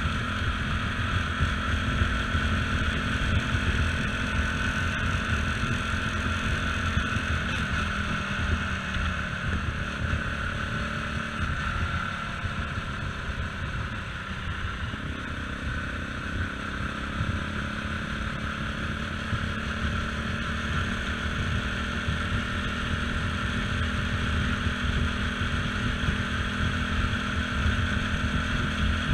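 CSC RX4 motorcycle engine running as the bike is ridden, with wind rushing over the camera microphone. The engine note falls from about eight seconds in as the bike slows for a bend, then picks up again at about fifteen seconds.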